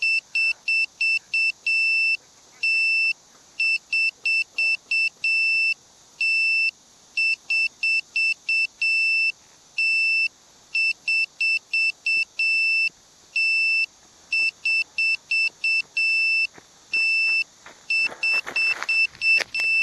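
A grounded FPV wing's onboard electronic buzzer beeping at a high pitch in an uneven pattern of long and short beeps. Near the end, rustling footsteps through grass come close.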